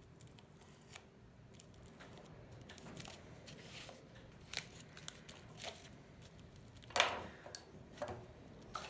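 Aluminium foil crinkling and clicking as a foil sculpture is handled and pressed with a pointed tool, in scattered sharp crackles, the loudest about seven seconds in.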